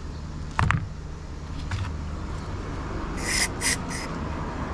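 Toothbrush scrubbing the carburetor parts of a Kawasaki TF22 two-stroke engine pump to clear dirt: a knock about half a second in, then three short brushing strokes about three seconds in.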